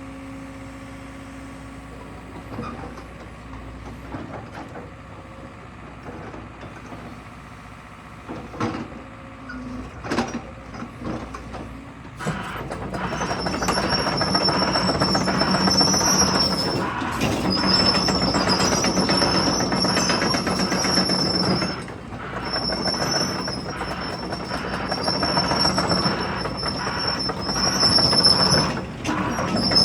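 JCB 220X LC crawler excavator running quietly with a few knocks, then from about 12 seconds in travelling on its steel tracks: a loud clattering of the track chains with a high squeal over it, easing off briefly twice.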